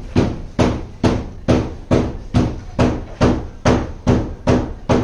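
Steady rhythmic knocking, a little over two sharp hits a second, each with a short ringing tail.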